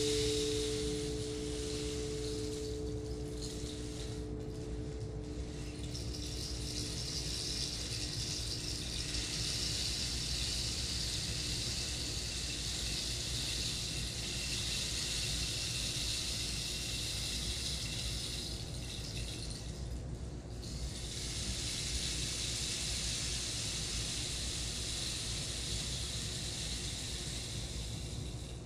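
Steady flowing water that dips briefly a few seconds in and again around twenty seconds. Under it, a ringing tone of two steady pitches fades away over the first several seconds.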